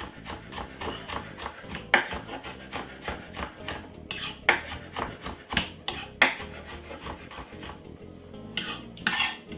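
Kitchen scraping as garlic is worked into a bowl of chicken marinade: a quick run of short strokes, then irregular louder scrapes and knocks.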